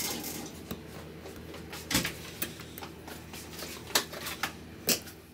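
Sharp, separate clicks and taps of small tools handled on a repair bench, about half a dozen, the loudest two near 2 and 4 seconds in, over a steady electrical hum.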